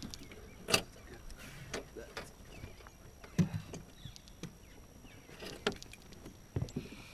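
Irregular knocks, clicks and low thumps of a largemouth bass being landed by hand in a fishing boat, as rod, reel and fish are handled against the boat. The sharpest knock comes about a second in, with heavier thumps near the middle and toward the end.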